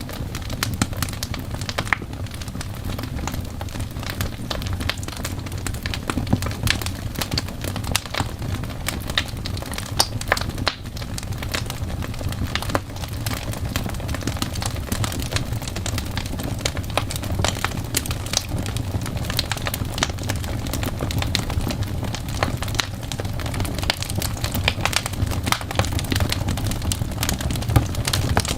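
Fireplace fire crackling, with many irregular sharp pops over a steady low rumble.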